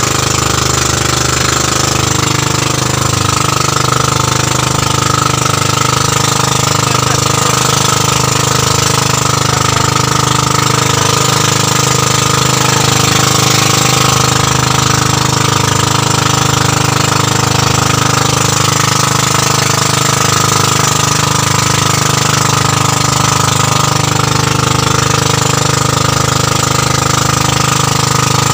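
A pumpboat's inboard engine running steadily at cruising speed, a loud, even, rapid chugging that holds throughout.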